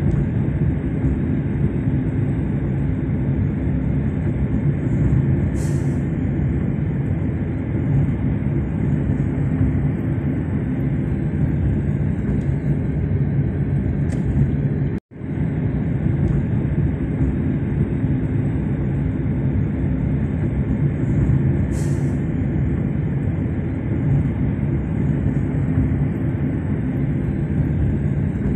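Steady low road and engine rumble inside a moving car's cabin. It cuts out for an instant about halfway through.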